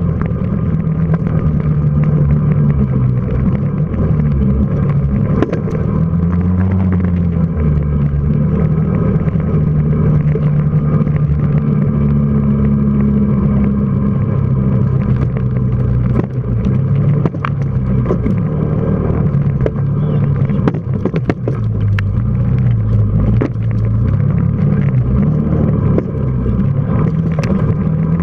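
Quad bike engine running as it is ridden over rough ground, its pitch rising and falling with the throttle, with scattered knocks and rattles, more of them in the second half.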